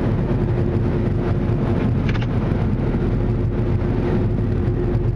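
Ryko SoftGloss XS 2.0 rollover car wash running its final drying pass, heard from inside the car: a loud, steady rush from the dryer blowers over a steady hum and low rumble.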